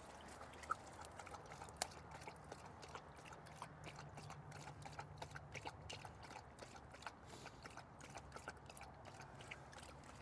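A thirsty dog lapping water from a bowl, a faint run of quick, repeated wet laps.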